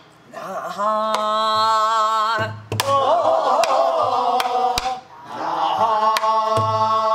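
Gueum, wordless Korean vocal-syllable singing in the namdo folk style: long held notes with a wide, wavering vibrato in two phrases, breaking off about two and a half seconds in and again near five seconds. A buk barrel drum is struck with a stick several times under the singing, with a few deeper thuds.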